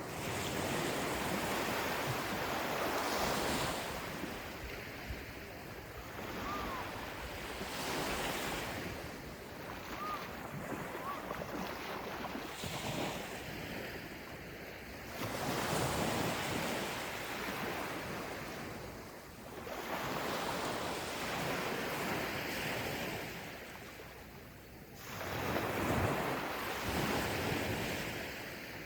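Gentle ocean waves breaking and washing up a beach, swelling and easing in surges every few seconds.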